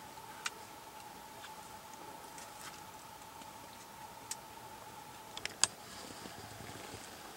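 Faint scattered sharp ticks, one every second or two, then a quick cluster of louder clicks about five and a half seconds in, over a faint steady high hum that stops at about the same moment.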